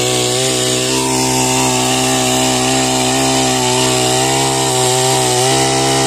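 Petrol STIHL chainsaw at full throttle cutting into a standing tree trunk. The engine note holds steady, dipping slightly now and then as the chain bites into the wood.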